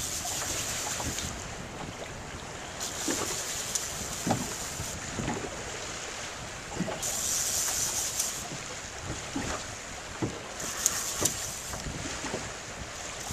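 Wind rushing across the microphone over choppy sea, with small waves slapping and splashing. The wind hiss swells in gusts about three times.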